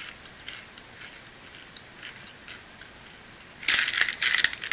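Faint crunching of a corn snack being chewed, then, about three and a half seconds in, loud crinkling and rustling of a Fritos snack bag as a hand reaches into it.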